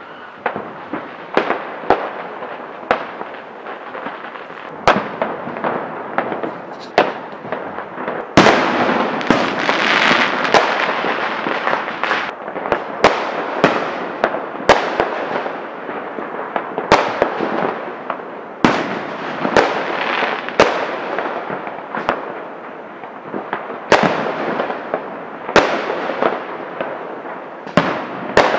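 Fireworks and firecrackers going off: scattered sharp bangs throughout over a steady crackle, which turns into a loud, dense run of crackling from about eight seconds in.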